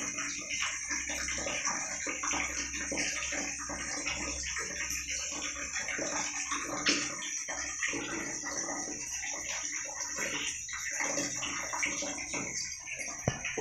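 Water splashing and sloshing in a plastic tub, with an otter's movements at the water, over a steady high hiss.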